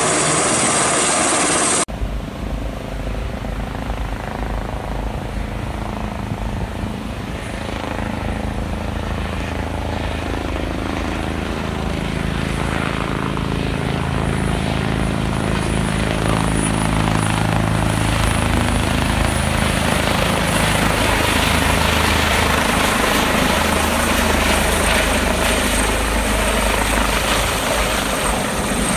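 Helicopter in flight, its rotor beat and engine growing steadily louder as it comes closer. The sound changes abruptly about two seconds in, where one recording gives way to another.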